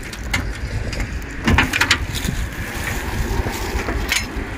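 Public rubbish bin being opened and searched for bottles: a few sharp knocks and a clatter of handling, bunched together about a second and a half in, over a steady low rumble.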